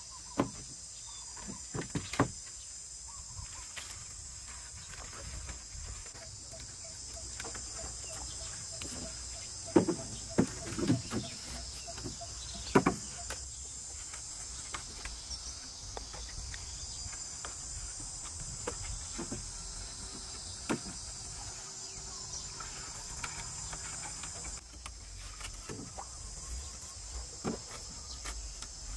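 Steady high-pitched buzzing of insects, with scattered sharp knocks and clatter of wooden poles being handled on a lashed pole frame, loudest in a cluster about ten to thirteen seconds in.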